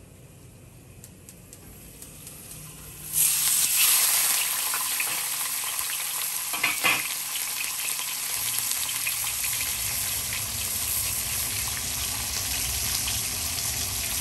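Whole crucian carp pan-frying with ginger slices in hot oil in a wok: a loud sizzle starts abruptly about three seconds in, strongest at first, with a couple of sharp spatters midway, then settles into a steady frying hiss. The oil is at medium-high heat to brown the fish skin.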